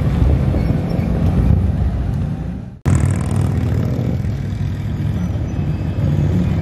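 BMW M3 sedan's twin-turbo straight-six running as it drives past close by, fading away. After an abrupt cut near the middle, a BMW X5 M SUV's twin-turbo V8 runs at low speed as it rolls out toward the camera, a steady low rumble.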